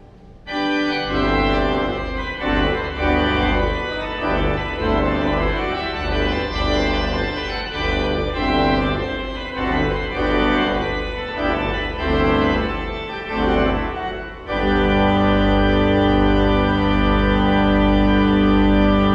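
Church organ playing a moving passage of chords. About three-quarters of the way through it settles onto a loud, full final chord held steady: the close of the organ music.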